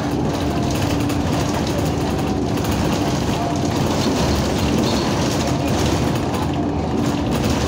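Bus running, heard from inside the passenger cabin: a steady engine drone and rumble with a low, even hum.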